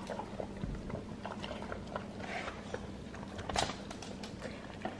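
Goldendoodle eating moist homemade dog food from a metal bowl: faint, irregular wet chewing and smacking sounds.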